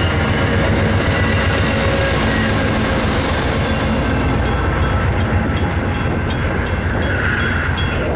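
A passenger train passing close by, running steadily, with wheel clicks over the rail joints coming at about three a second in the second half.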